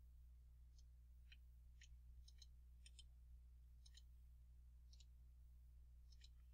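Near silence over a steady low hum, with about ten faint, irregular clicks from someone working a computer.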